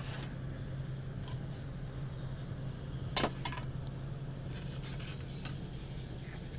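Stainless steel camp mugs and a steel pot being handled on a metal camp table, with a sharp metal clink a little over three seconds in. Lighter taps and some rustling come around it, over a steady low hum.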